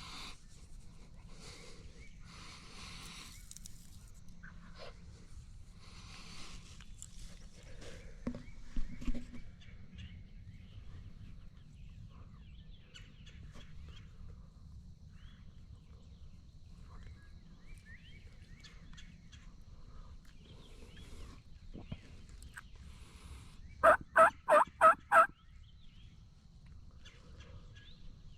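A run of five loud, evenly spaced turkey yelps near the end, over a faint outdoor background. Earlier, about a third of the way in, come a few short low thumps.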